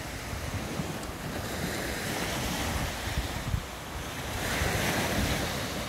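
Small sea waves breaking and washing up the beach, swelling twice, with wind buffeting the microphone.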